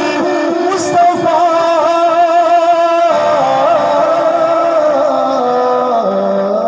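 A man singing a Punjabi naat through a microphone and PA loudspeaker, his voice ornamented and wavering for the first few seconds, then settling into long held notes that step down in pitch near the end.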